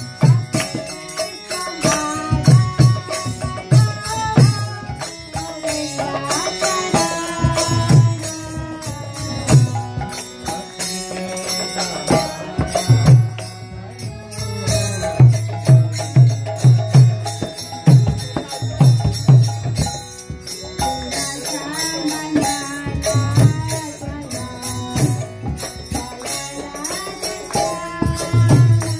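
Devotional kirtan music: voices chanting a mantra over steady drum beats and sharp metallic percussion.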